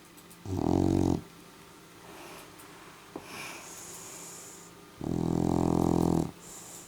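Sleeping dog snoring: two loud, low, rattling snores, a short one about half a second in and a longer one of over a second about five seconds in, with quiet breathing between them.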